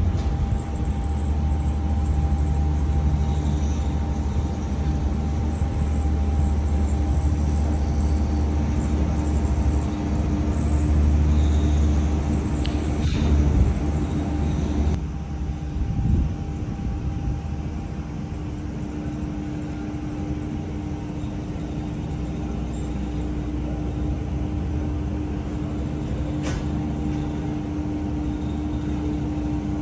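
Cable car gondola running along its cable: a steady low rumble with a constant hum over it. The rumble eases about halfway through.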